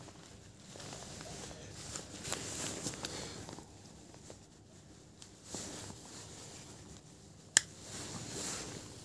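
A handmade slip-joint folding knife and its leather sheath being handled: soft rustling and scraping, with one sharp click about three-quarters of the way through as the blade is worked open.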